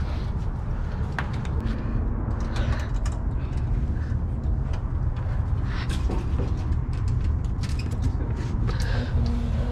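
Scattered scrapes and knocks of a person climbing down through a narrow concrete and rusted-steel shaft, over a steady low rumble.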